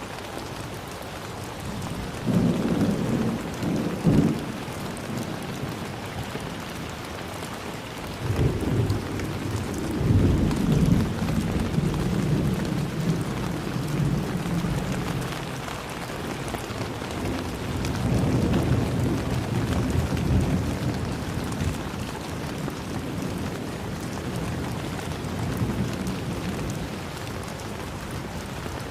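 Steady rain falling, with several rolls of thunder rumbling low through it.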